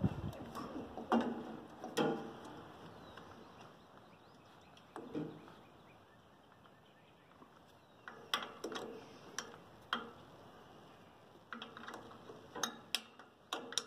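Scattered metallic clicks and light knocks of hand tools and fastener hardware on a tractor carburetor's mounting, coming in small clusters with a quiet gap in the middle.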